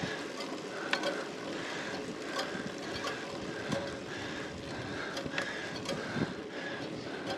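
Road bicycle climbing slowly on wet tarmac: a steady hiss of tyres and drivetrain, with a light repeating sound about twice a second in time with the pedal strokes and a few sharp clicks.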